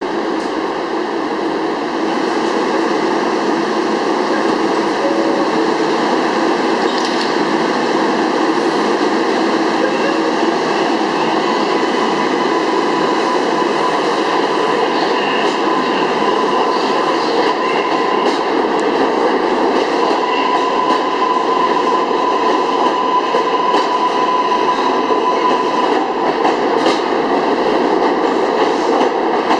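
R142A subway train pulling out of an underground station and running past the platform, a continuous rumble of wheels on rail. Partway through, a steady high whine from the train joins the rumble.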